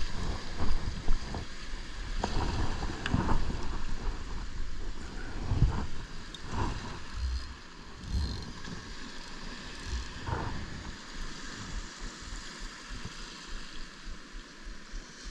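Wind buffeting the microphone over surf breaking and washing up the beach, gusty at first and calmer in the last few seconds.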